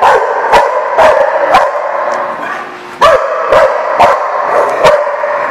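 A dog barking loudly in two runs of about four barks each, the second run starting about three seconds in.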